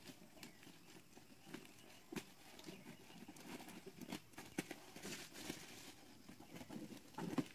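Faint, irregular snips and plastic crinkles of scissors cutting through a parcel's plastic wrapping and tape. The scissors are a bit dull.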